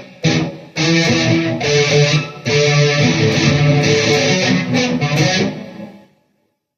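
Electric guitar played through a Peavey VYPYR X2 modelling amplifier: a phrase of notes and chords with a short break near the start, dying away to silence about six seconds in.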